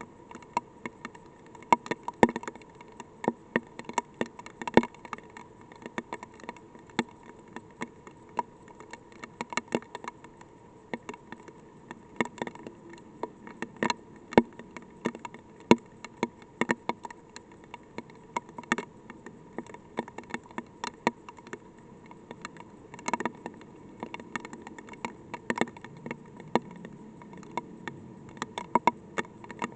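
Light rain: scattered raindrops tapping on the weather probe's housing in irregular sharp ticks, a few a second, over a steady hum.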